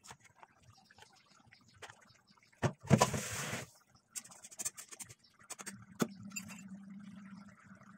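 Handling noises around a kadai of fish curry on a gas stove. About three seconds in there is a loud, short rustling burst, then a run of light clicks. Around six seconds in a metal lid knocks onto the pan, followed by a steady low hum.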